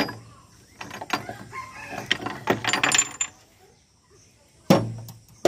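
Steel gears and shafts clinking and knocking in an open Sifang power tiller gearbox as they are moved by hand: a run of rattling clinks, then a single heavier knock that rings briefly near the end.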